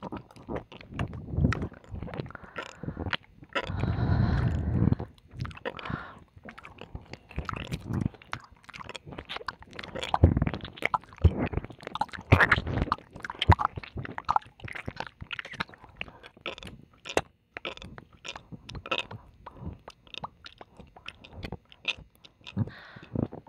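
ASMR ear licking and kissing mouth sounds: irregular wet smacks and clicks, with longer slurping licks about four seconds in and again around twelve seconds.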